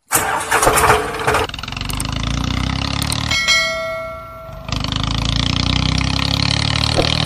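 Tractor engine running with a steady low beat. It stops for about a second around the middle while a bell-like ding rings, and a short burst of noise opens the sound.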